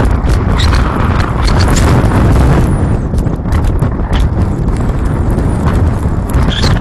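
Strong wind buffeting the microphone as a loud, steady low rumble with irregular crackles.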